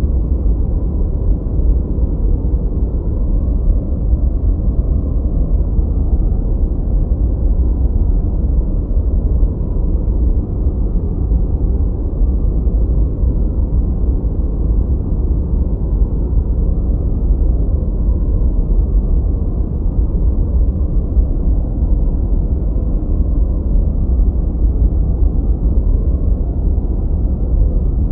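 Steady, unbroken generated noise for sleep and relaxation, gentle white noise filtered dark so it sounds like a deep, muffled rush with no hiss on top. It does not change.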